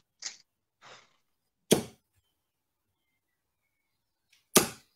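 Darts striking a dartboard: two sharp thuds a little under three seconds apart, with a couple of faint soft rustles before the first.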